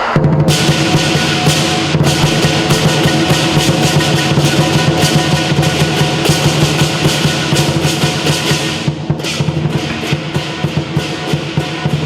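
Southern lion dance percussion: a large lion drum beaten in fast, dense strokes with crashing cymbals and gong. The playing thins for a moment about nine seconds in, then picks up again.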